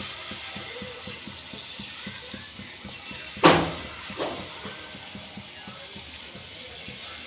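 A metal kitchen utensil strikes a metal cooking vessel twice with a sharp ringing clink, the first loud and the second, under a second later, softer, over a steady fast ticking.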